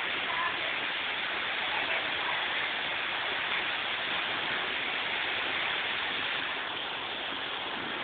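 Heavy rain pouring steadily in a severe thunderstorm, a dense even hiss with no hail in it yet.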